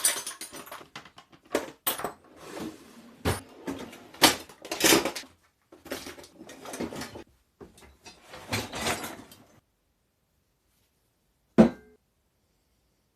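Rummaging: irregular clattering, knocking and rattling of hard objects being moved about in a search. The clatter stops about two-thirds of the way in, and a single sharp knock comes near the end.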